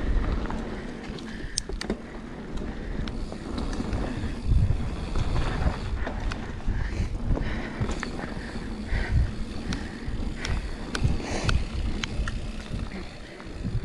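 Mountain bike rolling down a dirt flow trail: tyres rumbling over the ground, with the chain and frame rattling in many sharp clicks over bumps. Wind buffets the microphone.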